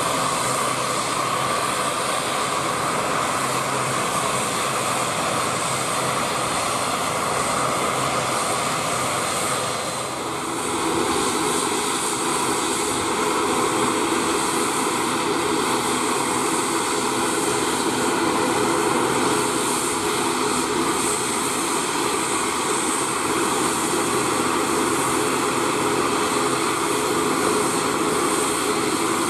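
Two Pratt & Whitney PW127M turboprop engines of an ATR 72-600 airliner running steadily as it taxis, a continuous propeller drone with steady tones. About ten seconds in, the sound dips briefly and then comes back with a deeper hum.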